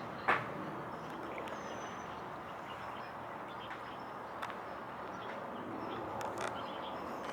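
Steady outdoor background noise with no clear tone in it. A single sharp click comes just after the start, and a few fainter ticks follow later.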